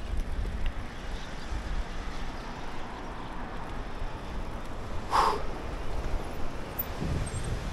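Steady outdoor rushing noise with wind buffeting the microphone, and one short sharp sound about five seconds in.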